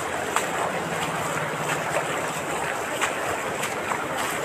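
Floodwater running across a street, a steady rushing wash of noise with scattered small crackles through it.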